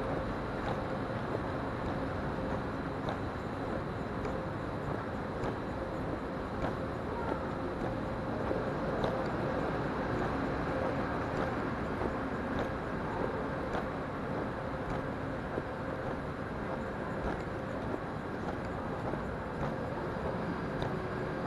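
Steady rumbling background noise of a railway station's underground platform passage, with a faint steady hum and a few light ticks.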